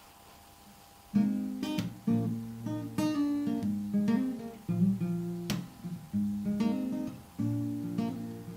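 Guitar starting about a second in, strumming and picking a repeating chord pattern, each chord ringing on briefly before the next; the song's accompaniment before any singing comes in.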